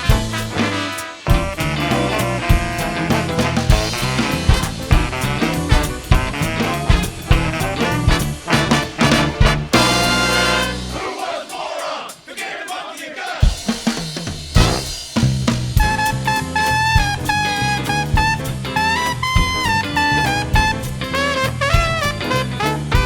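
An 18-piece big jazz band playing a swing number: brass and drum kit. About eleven seconds in, the bass and drums drop out for a couple of seconds, then the full band comes back in with long held horn notes.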